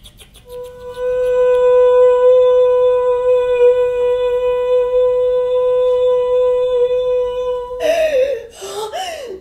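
A woman's voice holding one long note at a steady pitch for about seven seconds. Near the end it breaks into short sliding, wavering vocal sounds.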